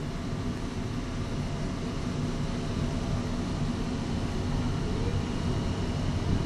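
Steady low engine rumble with a faint constant hum over it, unchanging throughout.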